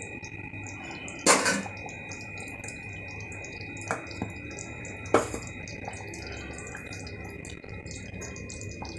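Thick chicken kurma gravy simmering in an open aluminium pressure cooker on a gas burner, with a steady low bubbling. Three short sharp sounds cut through it, the loudest about a second in.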